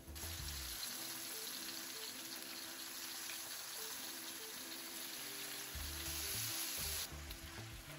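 Flour-coated chicken pieces deep-frying in hot oil (375°F) in a wok: a dense sizzle that starts suddenly as the batch goes into the oil and eases off about seven seconds in. Background music with a bass line plays underneath.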